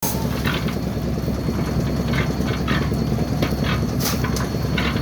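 A machine engine running steadily with a low rumble, with irregular short clatters and scrapes over it.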